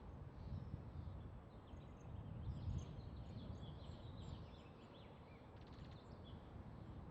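Faint ambient background: a steady low rumble with many short, high bird chirps scattered through it, and a brief quick rattle about six seconds in.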